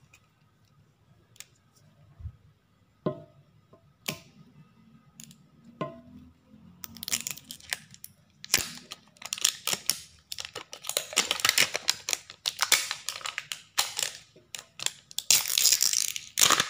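Plastic wrapper of a toy ball being handled and peeled: a few light taps at first, then from about seven seconds a dense, irregular crinkling and tearing as the wrap comes off.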